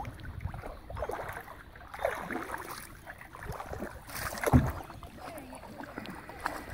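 Water splashing and sloshing from kayak paddle strokes and a dog wading through shallow water, with one sharper knock or splash about four and a half seconds in.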